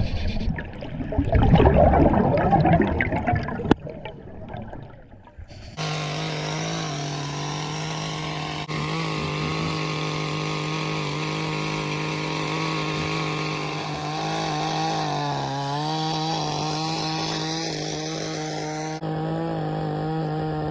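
Chainsaw cutting through lake ice: a few seconds of loud rough noise, then the saw running steadily at high speed, its pitch sagging briefly under load partway through.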